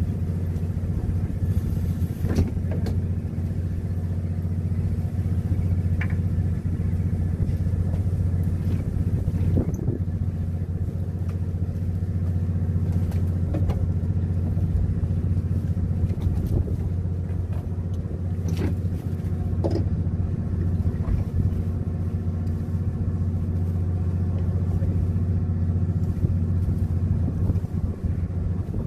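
Fishing boat's diesel engine running steadily, a constant low hum, with a few faint clicks here and there.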